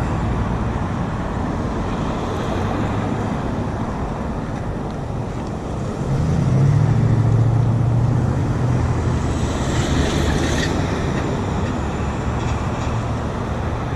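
Road traffic passing close by: a steady wash of cars going past, with one vehicle's low engine drone swelling about six seconds in and fading after about three seconds.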